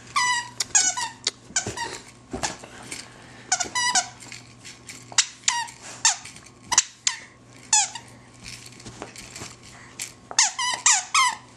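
Squeaker in a plush dog toy squeaking again and again as a Rhodesian Ridgeback bites and tugs it. The squeaks are short and high, many falling in pitch, and come in quick runs: busiest at the start and again near the end.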